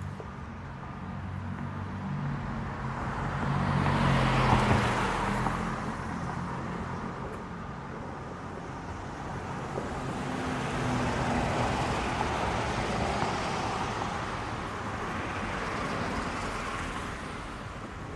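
Traffic driving through snow slush: tyres hiss through the wet slush over a low engine rumble. Three vehicles pass, each swelling and fading, the loudest about four seconds in.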